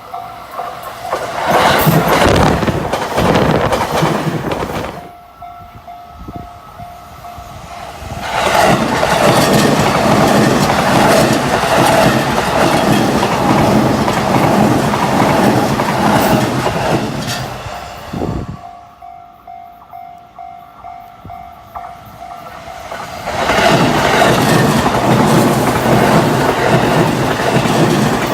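Chuo Line electric trains passing in three loud spells, wheels clattering rhythmically over the rail joints. In the quieter gaps a level-crossing warning bell rings with a steady, evenly pulsing tone.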